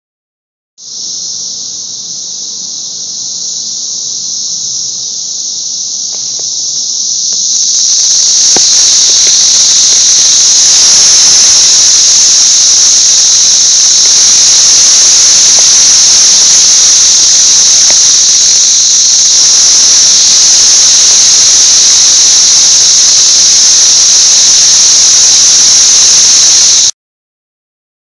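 Deafening chorus of thousands of Brood XIX periodical cicadas: one continuous, shrill, high-pitched drone. It comes in about a second in, swells louder and fuller after several seconds, then cuts off suddenly near the end.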